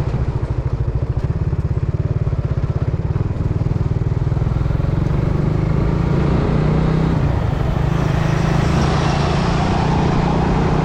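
Motorcycle engine running while riding at low speed, its firing pulses plain at first and then smoothing into a steadier note. Wind and road noise grow through the second half.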